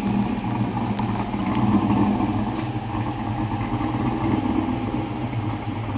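A 6.0-litre LQ4 V8 with an aftermarket camshaft idling steadily through dual 3-inch exhausts.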